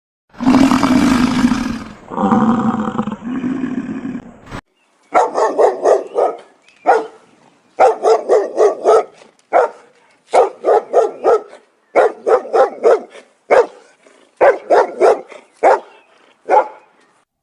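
A deep roar for the first four seconds or so, then a dog barking in quick runs of three to five barks with single barks between, repeated about a dozen times.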